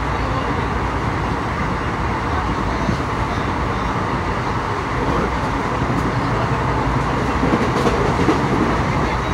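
Indian Railways ICF passenger coach running at speed, heard through an open barred window: a steady rush of wind and wheels on rail. A few faint clicks come in the second half.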